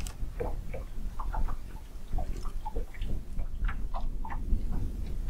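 Fishing reel being cranked: irregular light clicks and ticks over a steady low rumble.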